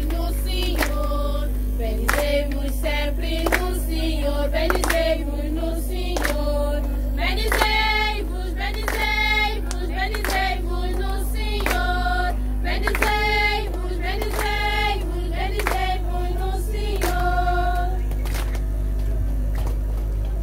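Congregation singing a hymn together with rhythmic hand-clapping, about one and a half claps a second. The singing fades out near the end while a few claps continue.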